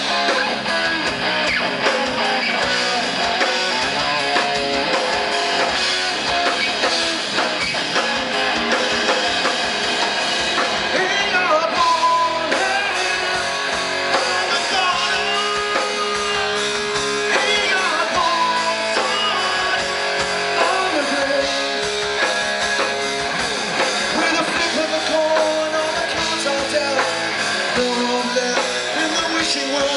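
Live rock band playing at full volume: electric guitar over bass guitar and drum kit.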